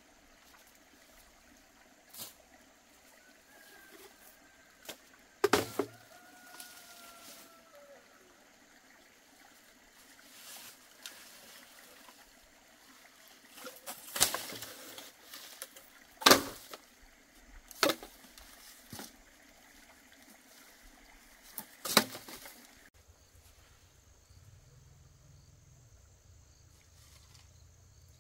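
Sharp single knocks several seconds apart over a quiet rural background, with a drawn-out call that slides down in pitch a few seconds in.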